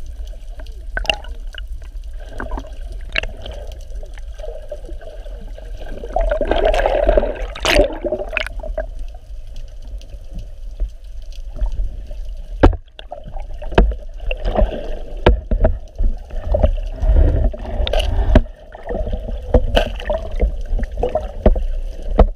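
Water sloshing and gurgling around a camera held at the waterline, muffled with a low rumble. About seven seconds in a louder churn of splashing comes as a fish strikes at the surface, and sharp knocks sound now and then later.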